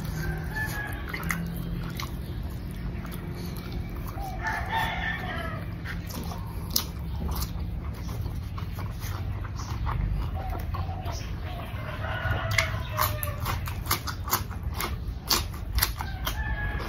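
A rooster crowing twice, about four seconds in and again around twelve seconds, over close-up chewing with many sharp mouth clicks and smacks.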